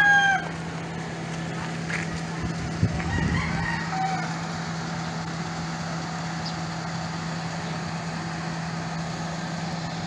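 A rooster crowing: the end of one loud crow right at the start and a fainter call a few seconds in, over a steady low hum.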